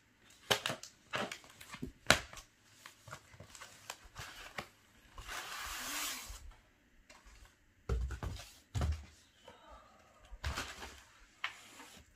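Foam packing wrap being torn open and pulled off a plastic car part: sharp crackles and crinkling, then a long rasp of wrap sliding about five seconds in, and a couple of dull thumps around eight seconds in.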